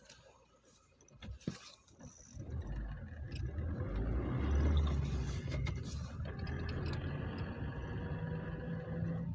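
Lada Kalina 1.6 car running: a few light clicks, then low engine and vehicle noise builds from about two seconds in, is loudest around the middle and settles into a steady hum.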